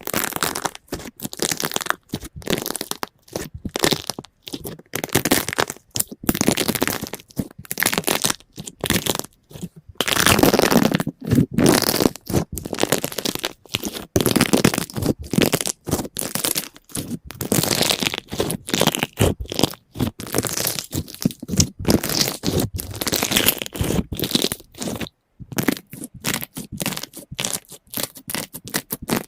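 Slime being squeezed and poked, giving dense runs of crackling and popping clicks in short bursts with brief pauses between them.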